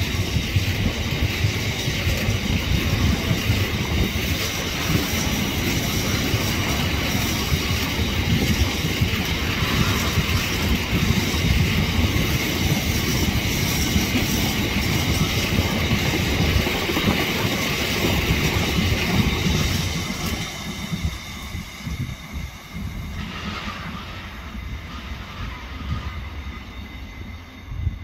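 Long freight train of mostly empty container flat wagons passing close by, its wheels rumbling steadily over the rails. After about twenty seconds the sound drops away as the last wagons pass and recede.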